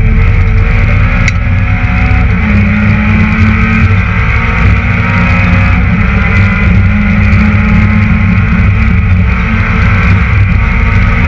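Citroën Saxo VTS rally car's 1.6-litre 16-valve four-cylinder engine running hard, heard from inside the cabin. The note is loud and steady, its pitch shifting slightly about two and a half and six seconds in.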